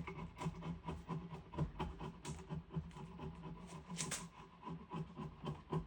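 A small wood chisel scraping rough bark off a chunk of diamond willow, in short, light strokes a few times a second.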